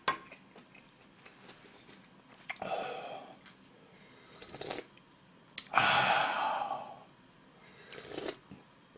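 Slurps of hot ramen broth sipped from a wooden ladle, four in a row, the loudest and longest about six seconds in.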